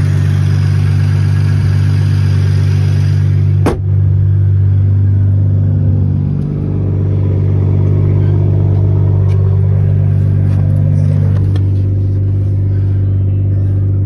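BMW M240i's B58 turbocharged inline-six idling steadily through an aftermarket catted downpipe with no muffler. A single sharp thump comes about four seconds in.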